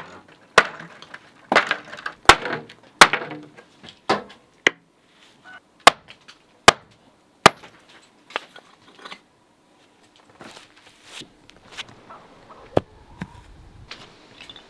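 Irregular sharp knocks and cracks of chimney demolition, about a dozen strikes in the first nine seconds and fewer after: blows to knock a wooden piece off a brick chimney.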